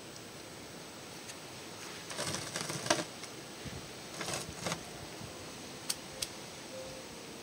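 Handling noise: two bursts of crackling rustle, about two and four seconds in, then two sharp clicks near six seconds, over a steady hiss.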